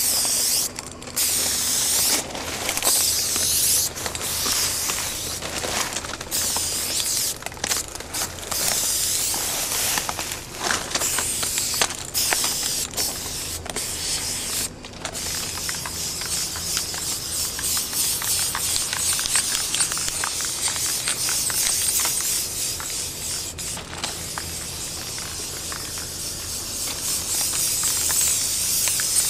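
Aerosol spray-paint can hissing as graffiti lines are painted. The hiss comes in short bursts with frequent brief breaks for the first half, then runs in longer, more continuous sprays.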